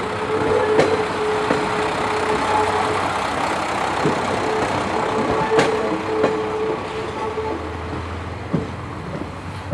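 KiHa 185 series diesel railcar rolling slowly past over curved depot track: the diesel engine running, a thin wheel squeal that comes and goes, and a few sharp clicks of wheels over rail joints. It fades near the end as the railcar moves away.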